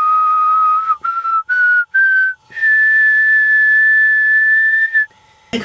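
Whistling: a held note, then three short notes each a little higher, then a long high note held for about two and a half seconds that cuts off suddenly.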